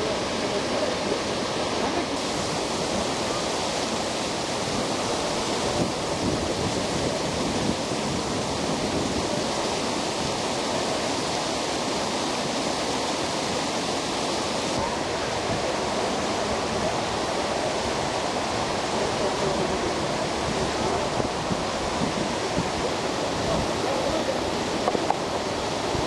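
Waterfall pouring onto rocks and into a pool: a steady, even rush of falling water, its level shifting slightly a few times.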